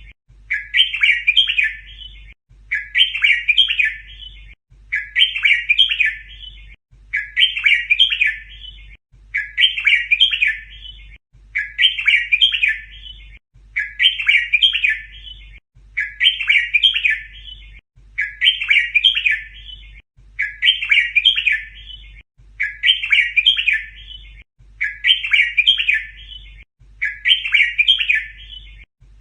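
Red-whiskered bulbul song: the same short, rapid phrase repeated over and over about every two seconds, a looped training recording for teaching young bulbuls to sing. A faint low hum under it drops out briefly at each repeat.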